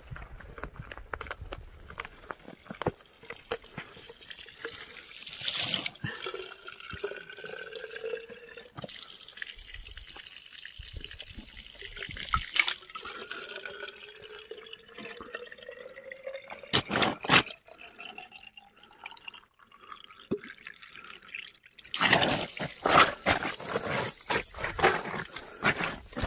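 Spring water running from a pipe spout into a bottle, the pitch of the pouring rising as the bottle fills. A few knocks come in between, and near the end there is a louder stretch of clatter and rustling.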